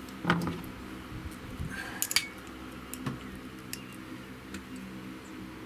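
A few light knocks and clicks of things being handled and set down on a workbench, over a faint steady low hum.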